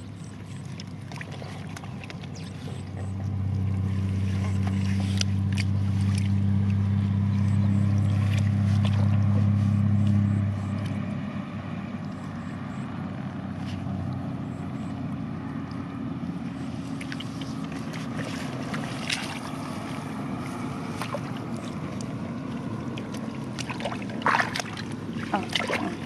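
Hands sloshing and splashing in shallow muddy water among wet rice straw, with scattered small splashes and clicks, a cluster of them near the end. A steady low engine hum runs underneath, loudest from about three to ten seconds in, then fainter.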